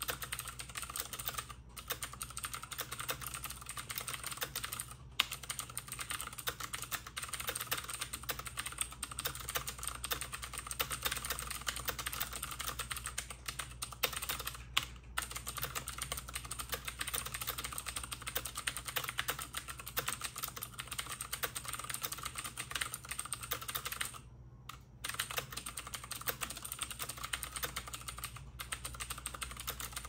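Fast, continuous touch-typing on a Logitech K845ch mechanical keyboard with clicky Cherry MX Blue switches: a dense stream of clicking keystrokes at typing-test speed (about 97 words per minute), broken by a few brief pauses.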